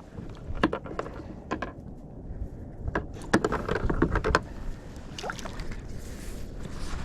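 Scattered knocks and clicks of gear being handled aboard a fishing kayak, with a cluster of sharp knocks in the middle, over a low wind-and-water rumble.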